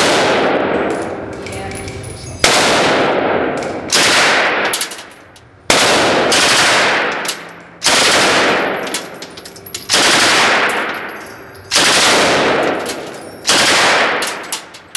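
9mm Uzi submachine gun firing a string of short full-auto bursts, about eight in all, each one echoing and dying away before the next, in an indoor range.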